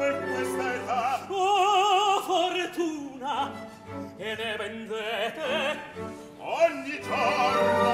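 Male opera voices, a bass and a tenor, singing an Italian comic duet in quick alternating lines over an orchestra, with a held note in wide vibrato about a second and a half in.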